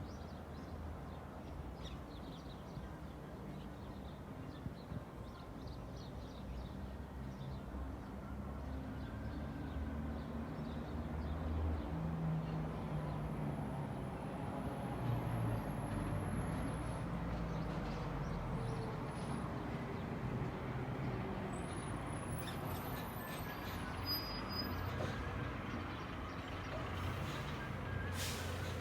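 Road traffic: vehicle engines running as vehicles pass, with a steady low rumble that grows louder about twelve seconds in. A short hiss comes near the end.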